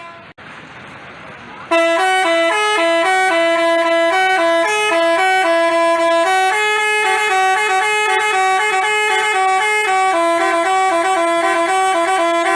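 Multi-tone Basuri 'telolet' bus horn playing a melody. It comes in loudly about two seconds in, with quick short notes stepping between a few pitches, over faint background noise before it starts.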